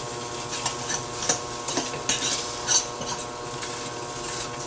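A cooking utensil stirring and scraping in a pan: a string of irregular scrapes and clicks over a steady hum.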